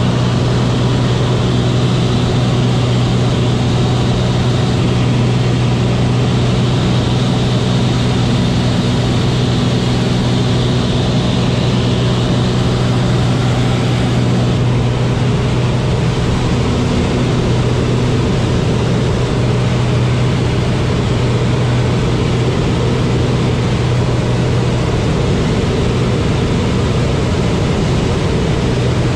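Cabin noise inside a high-wing propeller light aircraft in flight: the engine and propeller drone steadily and loudly over rushing air, with a strong low hum. The tone shifts slightly about halfway through.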